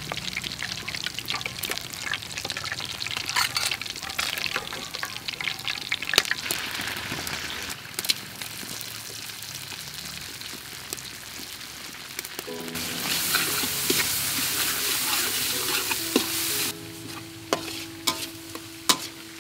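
Hot oil sizzling in a carbon-steel wok while food fries, with sharp clicks and scrapes of a metal spatula against the pan. The sizzle swells louder for about four seconds past the middle, then drops back.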